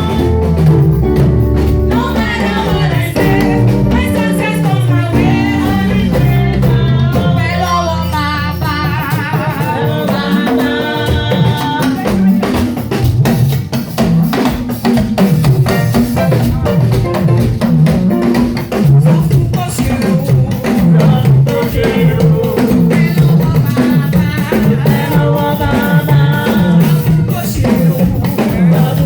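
Praise music with a drum kit keeping a steady beat under a moving bass line and singing voices.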